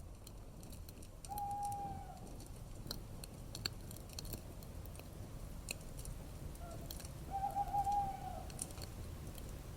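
A bird calls twice, each a short, fairly steady whistled note, the second slightly warbling. Faint scattered crackles and clicks run underneath.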